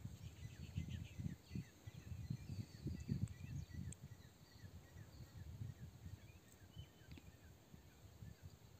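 Low, irregular bumps and rustles of hands working wires and a small screwdriver on plastic two-way switch terminals, busiest in the first few seconds. Faint, quick bird chirps sound throughout in the background.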